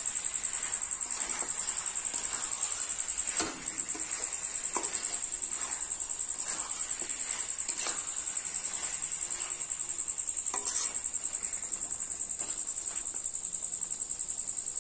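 A steady, high, pulsing insect trill, with a metal spatula now and then scraping and knocking against a metal pan as chicken pieces in thick masala are stirred.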